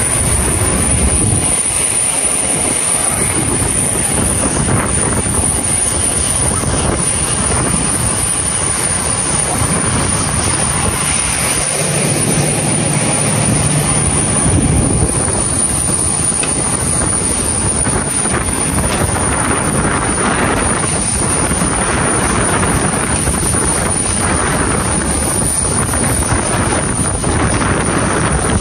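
Steady loud roar of jet aircraft on an airport apron, with a constant high whine running through it.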